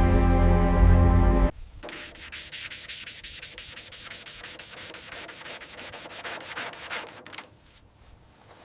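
Music until about a second and a half in, then rapid, even back-and-forth rubbing strokes on the car's bodywork, several a second, typical of hand sanding or polishing. The strokes stop a little before the end.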